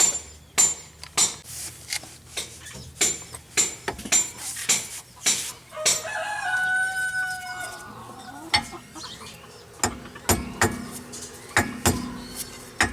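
A rooster crows once, about halfway through, amid a run of sharp clicks and knocks. A low steady hum starts near the end.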